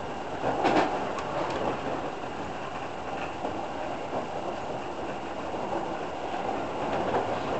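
Steady running noise of a Toei Shinjuku Line commuter train heard from inside the passenger car: wheels rumbling on the rails at speed, with a few sharp clicks in the first second and a half.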